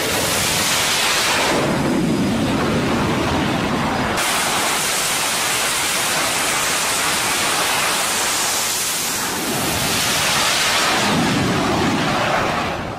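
F/A-18 fighter jet engines at full power during catapult launches from a carrier deck: a loud, continuous rushing jet roar. The sound changes abruptly about four seconds in.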